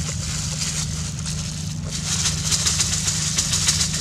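A motor running steadily, like an engine idling, with a high hiss of fast pulses that grows louder about halfway through.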